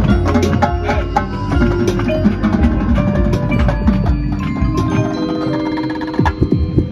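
Drum corps front ensemble playing: marimbas and other mallet keyboards in a quick stream of ringing notes, with drum and cymbal hits over a low bass. A few sharp accented hits stand out near the end.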